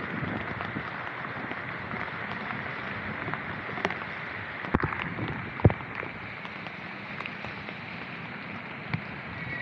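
Steady hiss of heavy rain and tyres on a wet road, heard from a moving electric bike, with wind on the microphone. A couple of sharp knocks sound about halfway through.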